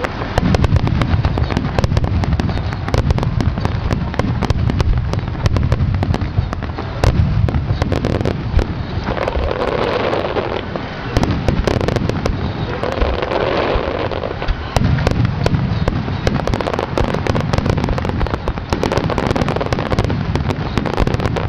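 Starmine fireworks barrage: a continuous run of deep booming shell bursts under dense, rapid crackling and popping, with no pause.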